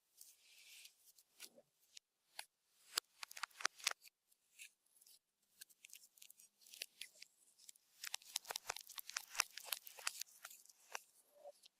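Slime being worked by hand, giving off quiet, irregular little clicks and pops, sparse at first and coming thick and fast in the last few seconds.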